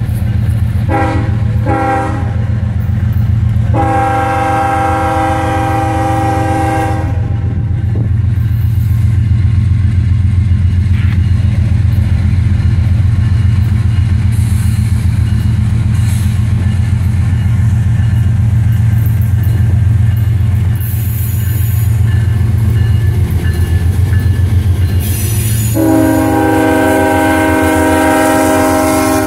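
Norfolk Southern GE diesel locomotive sounding its multi-note air horn as it comes up and passes close by: two short blasts near the start, a long blast about four seconds in, and another long blast near the end. Under it runs the steady rumble of the diesel engines and the wheels on the rails.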